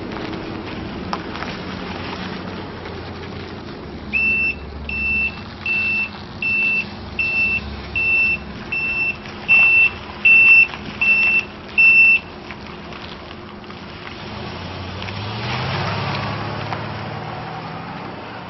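Chevrolet C3500 service truck's 7.4-litre V8 engine running as the truck turns, with its backup alarm beeping eleven times, a little over one beep a second, while it reverses. Near the end the engine revs up as the truck pulls away, then fades.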